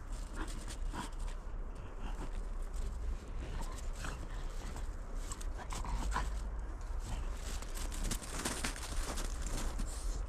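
A French bulldog's breathing and small vocal noises, over irregular crunching footsteps in snow.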